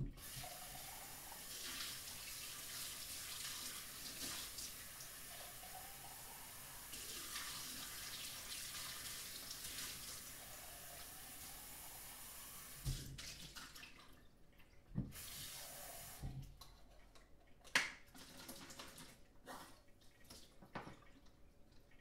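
A kitchen tap runs water into a glass French press being rinsed out at the sink, steady for about thirteen seconds. The water then stops, and scattered knocks and clinks follow as the press is handled.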